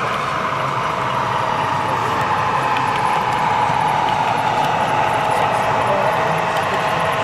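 OO gauge model diesel locomotive hauling a container train past, with a steady diesel engine sound that is typical of an onboard DCC sound decoder.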